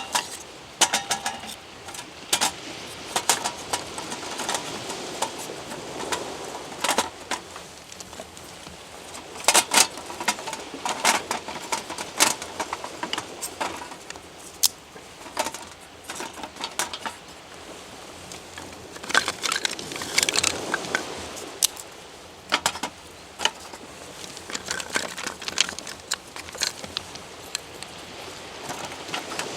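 Irregular light clicks, knocks and clinks from hard objects being handled, scattered through the stretch over a low background hiss.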